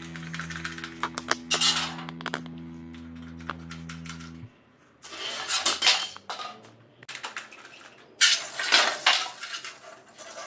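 Toy water pistol squirting at aluminium cola cans: light metallic clinks and clatter as the cans are hit and tip over, and two loud bursts of spray spattering across the table in the second half.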